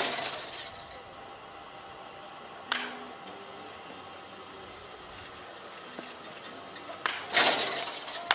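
Wooden baseball bats cracking against balls in batting practice. There is a loud hit at the start and a lighter knock about three seconds in. Near the end comes another loud hit followed by a sharp knock, and the loud hits each trail off in a short noisy tail.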